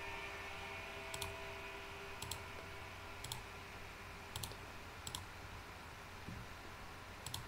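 Faint computer mouse clicks, six in all, spaced irregularly about a second apart, each a quick press-and-release pair.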